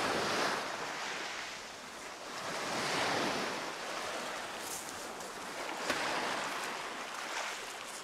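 Sea waves washing onto a pebble shore, swelling and fading about every three seconds, with a few faint clicks.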